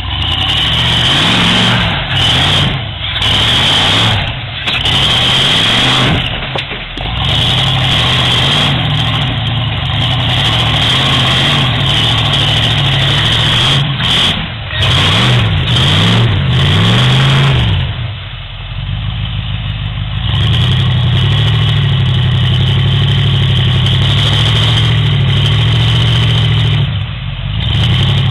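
Off-road rock buggy's engine revving hard under load as it climbs a rocky slope, the pitch rising and falling again and again. It eases off briefly about two-thirds of the way through, then is held high again.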